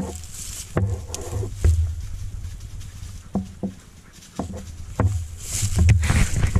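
Footsteps crunching through dry grass and brush at an irregular walking pace, with brush swishing against clothing, over low buffeting rumble on a body-worn microphone.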